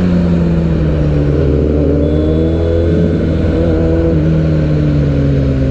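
Suzuki Hayabusa's inline-four engine running under way at a steady cruise, its note drifting slightly up and then easing back down.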